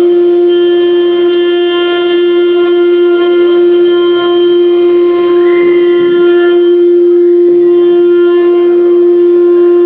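Spindle of a 4-axis wood CNC router running at high speed, a loud steady whine held at one pitch, with fainter overtones that come and go as the cutter works the wood.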